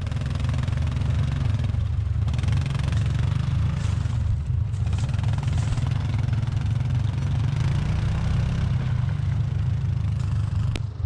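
Case 580K backhoe's diesel engine running steadily.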